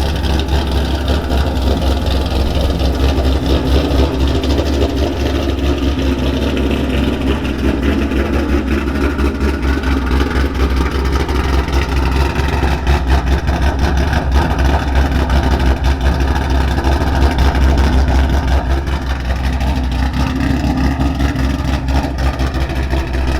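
Ford Mustang 5.0 V8 with American Racing headers idling loud, with the choppy, lumpy idle that a ghost cam tune gives.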